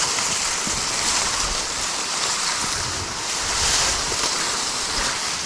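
Steady rushing noise of wind outdoors, with low, uneven buffeting of wind on the microphone.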